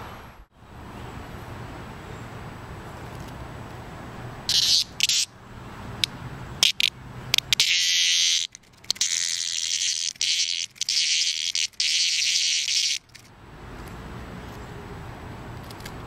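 A male dog day cicada buzzing while held between fingers: a few short, harsh buzzes about four seconds in, then a longer loud buzz broken by brief pauses that stops near the end. Only the males make this noise.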